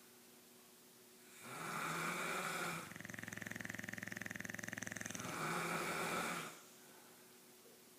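Snoring: one long snore cycle, a noisy breath going into about two seconds of fast, buzzing rattle and then another noisy breath, with quiet pauses before and after.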